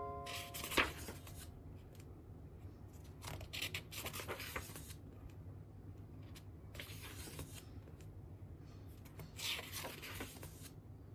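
Packaging and merchandise being handled during an unboxing: several short bursts of rustling and rubbing, with a sharp click about a second in.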